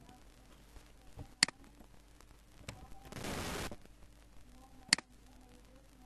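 Two sharp computer-mouse clicks about three and a half seconds apart, with a short half-second burst of hiss between them.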